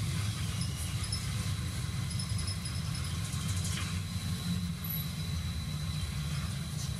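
Steady low rumble of a moving vehicle heard from inside its cabin, with a faint steady high whine above it.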